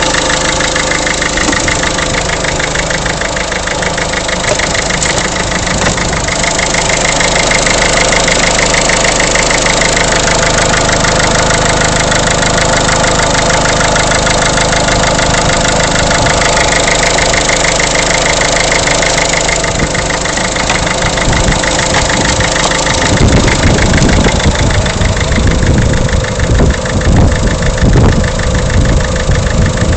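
Peugeot 307's 1.6 HDi four-cylinder turbodiesel engine idling with a steady, even diesel clatter. About three-quarters of the way through, a rough, uneven low rumble joins it.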